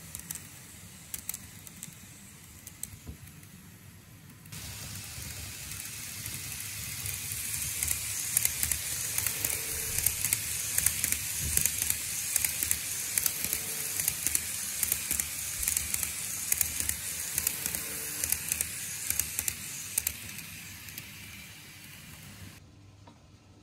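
TOMIX E231 series N-gauge model train running on its track: a steady rattle of wheels on the rails with many quick small clicks. It swells as the train runs close by and fades as it moves away, breaking off abruptly near the end.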